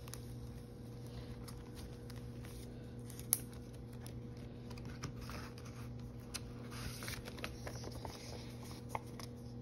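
Light rustling and small clicks of paper being handled: the pages of a spiral-bound savings book turned and a handful of paper bills shuffled, with one sharper click about a third of the way in. A steady low hum runs underneath.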